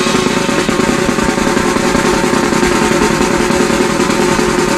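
Band music with busy drumming under a few steady held notes.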